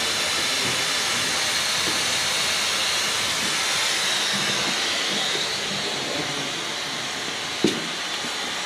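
Steady hiss of a vacuum waste-oil drain barrel running, drawing old oil out of the dozer's drain receptacle, with one short knock near the end.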